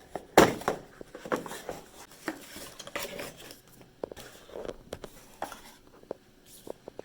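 Packaging of a boxed gadget being handled and opened: scattered clicks, knocks and light rustling, with one sharper knock about half a second in.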